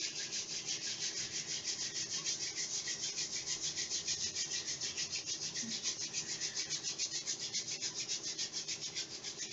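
Hands rubbing palms together briskly to warm them: a steady hiss of skin on skin in a quick, even rhythm of strokes.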